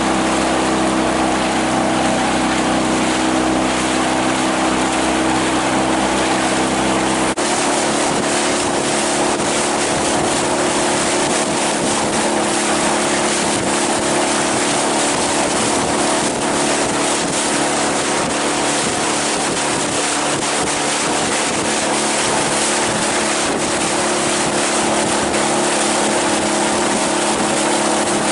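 Outboard motor running steadily at speed, its engine drone over the rush of wind and water. About seven seconds in the sound shifts abruptly, the low rumble dropping away and the engine tone changing.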